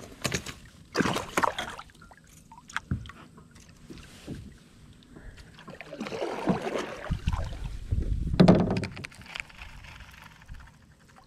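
Knocks and clatter of fishing rods and gear against a plastic fishing kayak's hull, with some water splashing, and one louder thump near the end.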